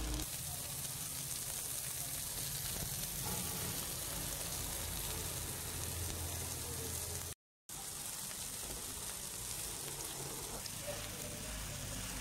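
Masala-coated whole fish frying in oil on a flat iron tawa griddle: a steady sizzling hiss. It cuts out completely for a moment about seven seconds in.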